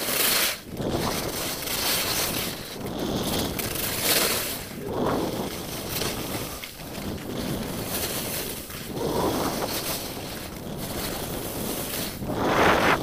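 Wind rushing over the camera microphone while skiing downhill, with the skis hissing and scraping over snow. The noise swells every few seconds, loudest near the end.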